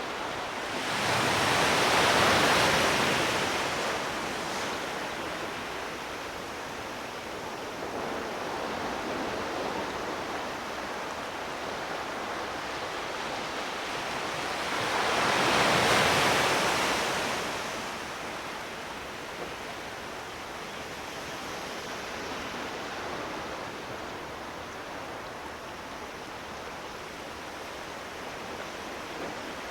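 Sea waves washing onto the shore over a steady wash of surf, with two larger waves breaking, one about two seconds in and one about sixteen seconds in, each swelling and fading over a few seconds.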